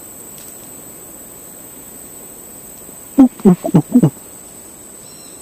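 Steady high-pitched insect buzz of tropical forest. About three seconds in, a quick run of five short, low, falling grunts breaks in: howler-monkey-style calls.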